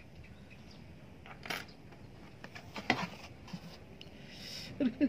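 A few sharp little clicks and scrapes of a small steel nail tool working under the edge of an ingrown big toenail, with a short voice starting at the very end.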